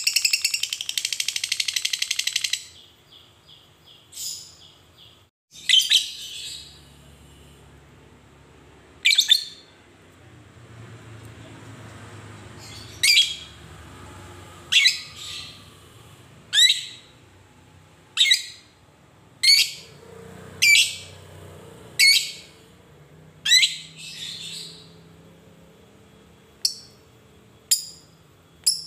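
Fischer's lovebird giving a fast, dense chattering trill (ngekek) that breaks off about two and a half seconds in, followed by a string of single sharp, high chirps every one to two seconds.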